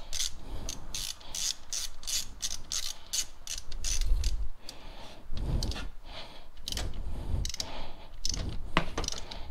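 Socket ratchet clicking as it is cranked to run down a rocker shaft bolt. A quick, even run of clicks for the first few seconds, then sparser clicks with a few dull knocks.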